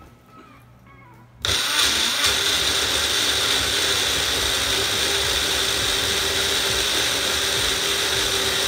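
Small personal push-down blender motor switching on about a second and a half in and running steadily with a high whine, blending chicken nuggets and dipping sauces.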